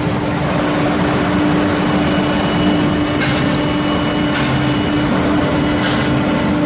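Four-spindle CNC nesting router running, with a steady hum and fainter high whines from the machine, broken by three brief high hisses.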